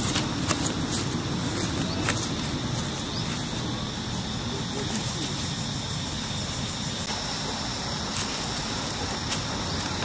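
Steady outdoor background noise: a low rumble with a faint, steady high tone above it and a few sharp clicks.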